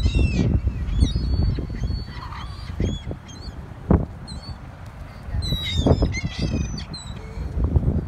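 A flock of gulls calling: short, high, repeated calls, with a busier burst of calling a little past the middle. Under the calls runs a low rumble on the microphone, with a sharp thump near the middle.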